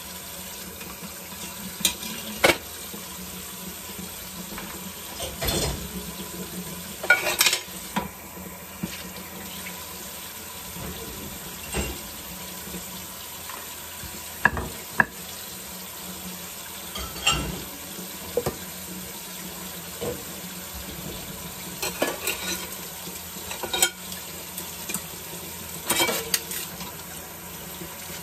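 Kitchen tap running steadily into a sink as dishes are rinsed, with scattered clinks and knocks of dishes and cutlery against each other.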